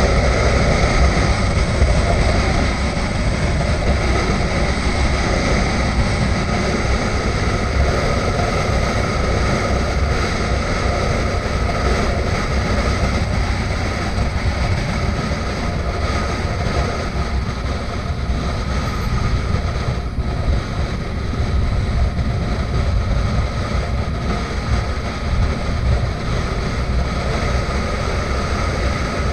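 Motorcycle being ridden at steady road speed, heard from a camera on the bike: wind rush over the microphone with the engine's low drone underneath, with no gear changes or revving.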